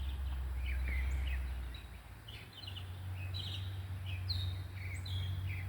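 Several birds chirping, with short, overlapping calls repeating throughout, over a steady low hum.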